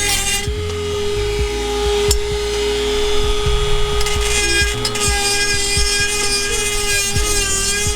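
Dremel 4000 rotary tool running at a steady high speed, a constant whine with rough grinding noise over it.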